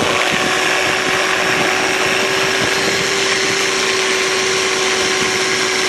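Electric buffer running steadily with a constant hum, polishing compound on an oxidized plastic headlight lens to take out 2000-grit sanding scratches.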